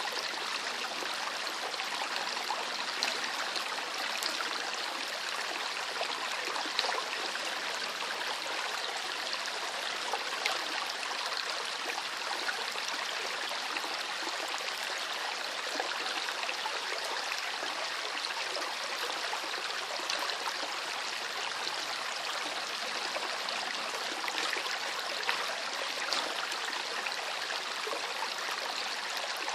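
Shallow river water flowing and babbling steadily, a continuous splashing rush with small gurgles and droplet ticks.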